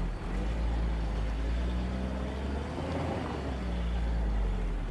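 1979 pickup truck's engine running under load as it drives through mud in two-wheel drive, heard from inside the cab as a steady low drone whose note shifts slightly near the middle.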